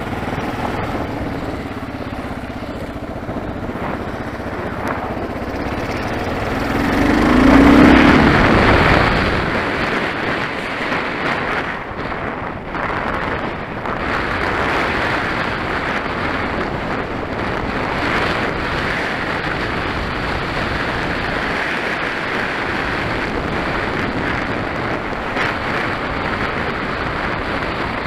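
Kawasaki KLR650's single-cylinder engine revs up and gets loudest about eight seconds in as the bike gets under way, then a steady rush of wind over the microphone covers the running engine for the rest of the ride.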